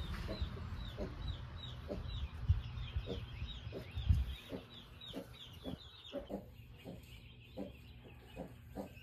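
Young chicks peeping, a rapid run of short falling chirps. Low rumbling and a couple of dull knocks come through in the first few seconds.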